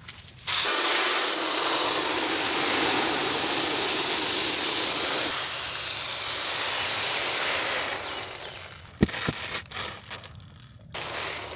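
Dried popcorn kernels pouring from a woven basket onto a large metal plate: a steady hissing rattle for about eight seconds, thinning to a few separate clicks as the last kernels fall.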